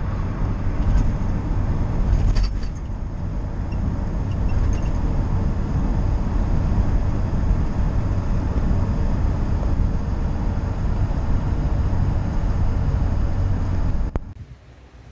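Steady engine and road noise inside a tow truck's cab at highway speed. It cuts off suddenly about a second before the end.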